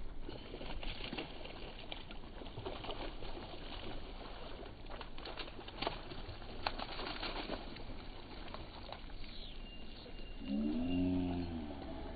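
Faint outdoor background with scattered small clicks. About ten seconds in comes the loudest sound, a low, drawn-out voice-like call of about a second that rises and then falls in pitch.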